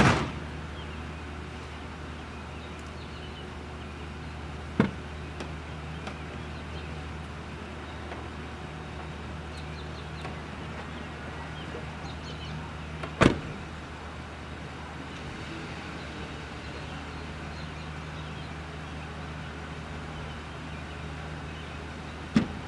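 Low steady hum of a pickup truck's engine idling, broken by four sharp clicks or knocks, the loudest near the start and about two-thirds of the way through.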